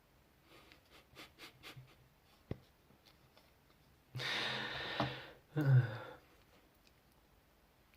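A few light clicks and taps of small plastic plugs being handled, one of them sharp. Then a long breathy exhale, like a sigh, and a short low voiced 'mm'.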